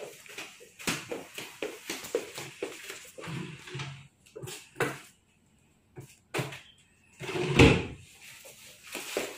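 A wooden TV cabinet drawer being opened and rummaged through: a run of small clicks and knocks, with a heavy thump about three-quarters of the way in.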